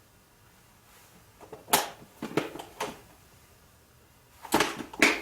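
Small objects being handled and rummaged through: a few sharp clicks and knocks, in two clusters, the loudest near the end.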